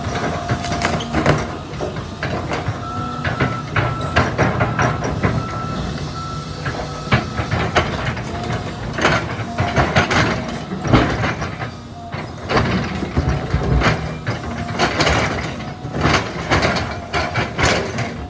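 John Deere hydraulic excavator working: its diesel engine runs steadily under load, with a whine that comes and goes, while the bucket digs and scrapes through earth and brush, giving repeated knocks and crunches.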